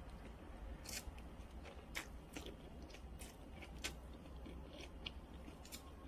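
About seven faint, sharp clicks at uneven intervals, over a low steady hum.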